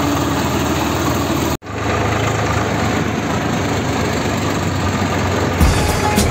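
Tractor diesel engine running, heard from the driver's seat. The sound drops out for an instant about a second and a half in, then the engine continues. Music with a beat comes in near the end.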